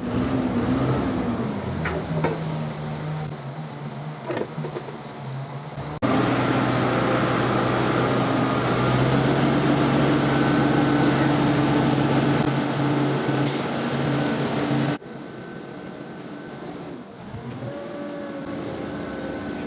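Chainsaw engine running at speed, its steady note jumping abruptly to a louder section about 6 seconds in and dropping back about 15 seconds in.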